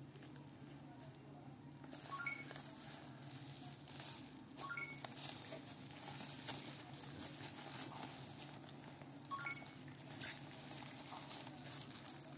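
Black plastic parcel wrapping crinkling and rustling as the package is handled and turned over in the hands, with scattered clicks and a sharp click about ten seconds in. A few short high chirps sound in the background, and a faint steady hum runs beneath.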